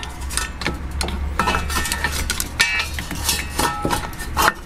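Screwdriver shafts clicking, scraping and clinking against the rusty metal wheel-bearing hub and the ABS sensor connector as the connector is pried loose. It is an irregular run of sharp clicks with a few short metallic rings, over a low steady hum.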